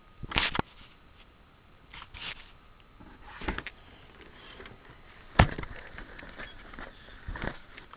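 Handling noises: a few short rustles and scrapes, with one sharp knock a little past five seconds in, the loudest sound.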